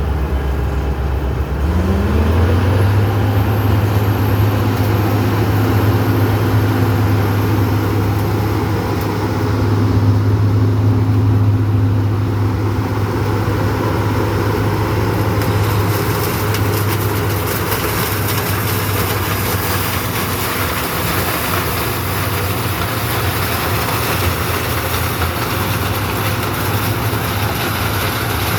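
Heavy diesel engine of a sugarcane harvester running loud and steady. It revs up quickly about two seconds in, and from about halfway through a harsher rushing noise joins it.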